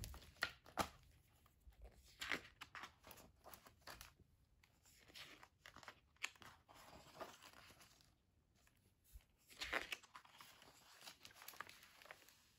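Pages of a hardcover picture book being turned by hand: a series of faint paper rustles and swishes with small handling clicks.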